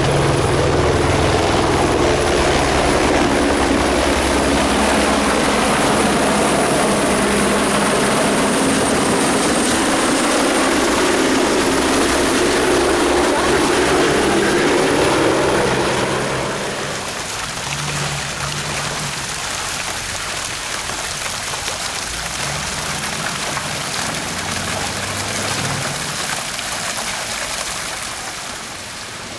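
Police helicopters lifting off and flying low overhead, their rotors and engines loud for about the first sixteen seconds. The noise then drops to a quieter steady rotor-and-engine sound with an on-and-off low hum, and falls again near the end.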